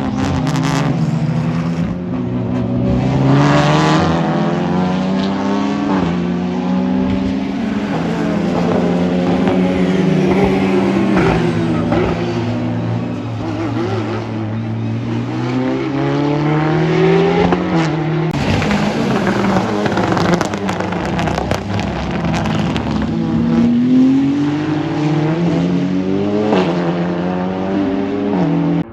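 Race car engines running hard on a circuit as cars pass one after another, the engine note climbing in pitch and dropping back again and again as they accelerate and change up through the gears.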